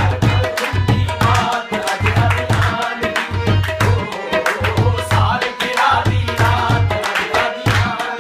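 Qawwali music played on harmonium and tabla: the harmonium holds steady reedy tones while the tabla keeps a brisk, steady beat of deep bass-drum strokes and sharp high strokes.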